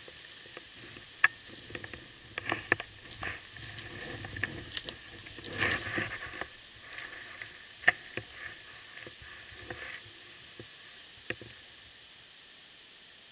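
Footsteps through leaf litter and undergrowth, with brush rustling against clothing and several sharp snaps of twigs breaking underfoot, scattered and irregular.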